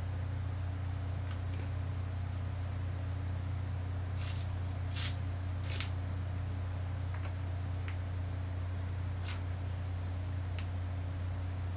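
A few brief scratchy rustles, about four, 5, 6 and 9 seconds in, from bandage wrap being handled and wrapped around a splinted ankle, over a steady low hum.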